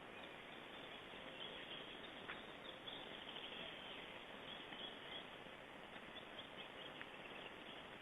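Steady faint hiss of outdoor background with faint, high chirping of small birds, and a couple of soft clicks.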